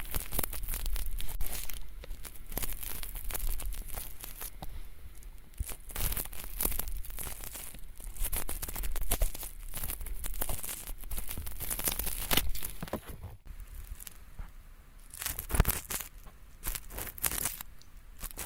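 Ear pick scraping thin flaky earwax in a dummy ear, heard close up as a dense run of short scratchy, crackling strokes. The strokes break off briefly about 13 seconds in as the work moves from the right ear to the left, then carry on.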